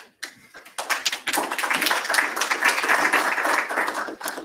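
Audience applause: a few scattered claps, then a room full of clapping from about a second in, stopping just before the end.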